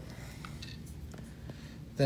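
A few faint, small clicks and taps from the positioner being handled and turned in the hands, over a low steady room hum.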